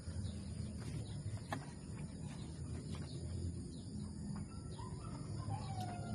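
Outdoor farmyard ambience: a steady high-pitched insect drone with scattered short bird chirps over a low rumble.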